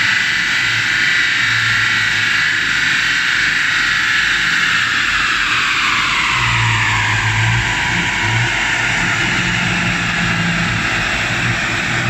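Supercharged V8 of a BMW E39 540i on a chassis dyno: a high whine that holds steady, then falls in pitch from about four seconds in as the engine and rollers wind down after a run, over a low engine hum.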